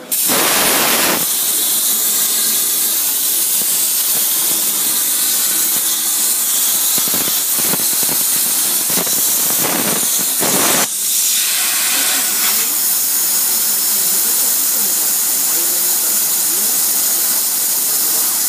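CNC plasma torch cutting 1/4-inch mild steel: a loud, steady hiss of the plasma arc. It starts abruptly as the arc fires, and dips briefly about eleven seconds in before carrying on.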